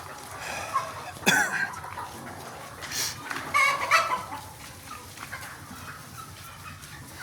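Desi chickens in a poultry shed clucking, with a loud squawk about a second in and another loud run of calls around four seconds in.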